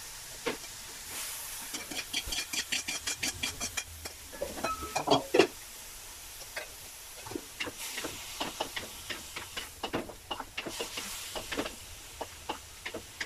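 Squid and kangkong stir-frying in an aluminium wok: a soft sizzle and hiss with short clicks and scrapes. A fast even run of clicks comes about two seconds in, and a wooden spatula scrapes and knocks against the wok near the end.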